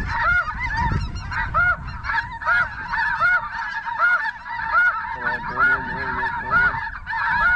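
A flock of snow geese calling: many short, high, yelping calls overlapping and repeating, with a lower, wavering goose call joining about five seconds in. Wind rumbles on the microphone near the start.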